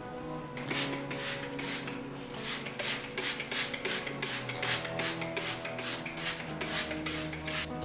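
A cloth wiping a stainless steel sink, rubbing back and forth in quick strokes several times a second, over soft background music.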